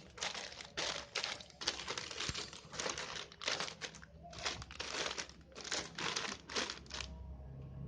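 Plastic packaging of a model kit crinkling and rustling as it is handled, in irregular bursts that stop shortly before the end.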